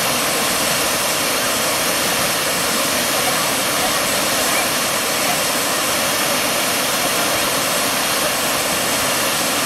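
Steady rushing of water pouring over the low check-dam cascade on the Kaveri river, an even unbroken noise.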